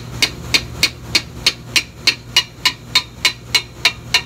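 Light, rapid metal-on-metal taps, about three a second, on the valve plate of a Copeland semi-hermetic compressor, knocking it gently to free it from the compressor body. A steady low hum runs underneath.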